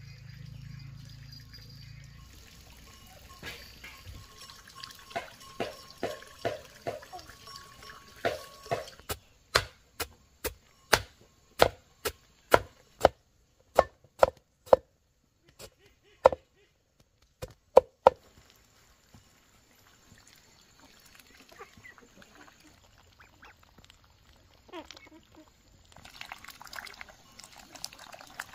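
A run of sharp knocks, about two a second, with a short break midway, led in by softer, quicker strokes.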